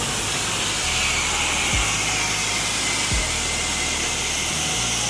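Pressure washer wand spraying a steady, loud hiss of high-pressure water against a screen enclosure. Low, short thuds come in about twice underneath it.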